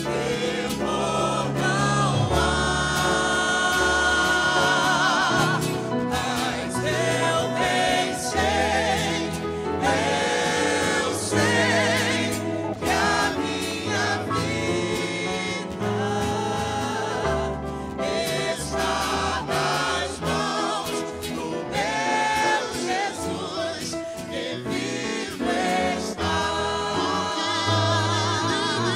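Mixed vocal group of men and women singing a gospel hymn in harmony, with keyboard and acoustic guitar accompaniment.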